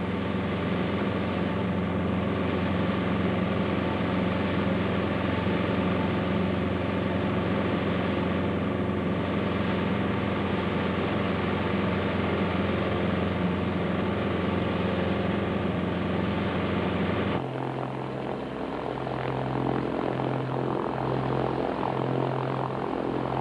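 Light aircraft's propeller engine droning steadily at climbing power, heard from the cockpit. About three quarters of the way through it cuts abruptly to a different, quieter aircraft engine sound with a low throb about once a second.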